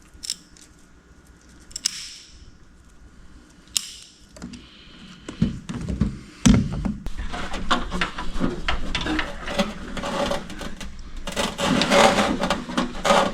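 Hands working automotive wiring and a rubber grommet: a few sharp clicks, then from about four seconds in continuous rustling and crackling of wires being handled, with a couple of dull thumps.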